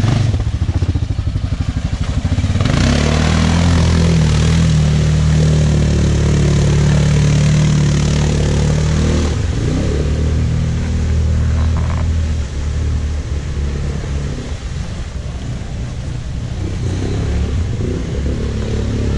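ATV engine pulling away and revving up about three seconds in, then running at steady high revs with a broad hiss for several seconds before easing off and running unevenly at lower revs.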